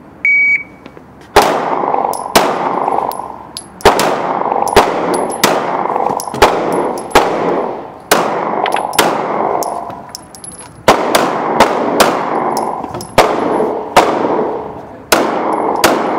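A shot timer beeps once to start, and about a second later a pistol fires a long string of roughly sixteen shots, often in quick pairs, each with a ringing tail.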